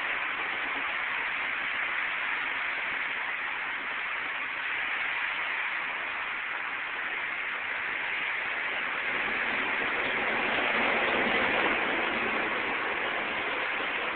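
Washington Metro train running, heard from inside the car: a steady roar of wheel, track and motor noise that swells a little about ten seconds in and eases off toward the end.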